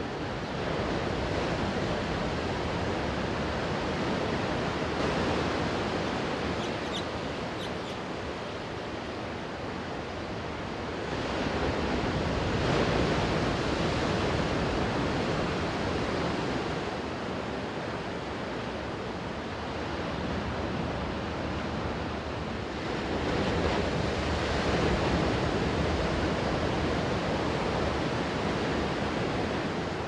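Sea waves washing onto a sandy beach: an even hiss of surf that swells and eases about three times.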